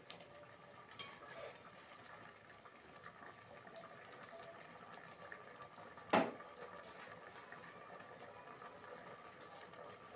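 Pot of rice and water boiling with a steady, faint bubbling. A light clink comes about a second in, and a sharp metal clack about six seconds in as the steel stirring spoon is set down on the stovetop.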